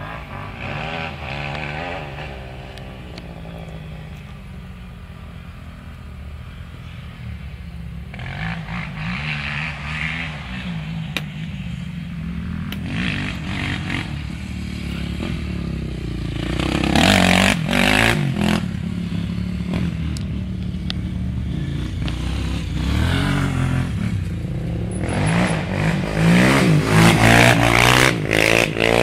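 Dirt bike engines revving and rising and falling in pitch, louder in the second half as a bike comes close.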